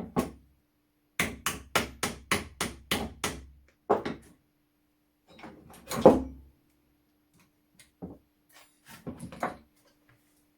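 Hammer tapping on the parts of a rusty flintlock shotgun being dismantled: a quick run of about eight light taps, then a few single heavier blows, the loudest about six seconds in, and a short cluster of taps near the end.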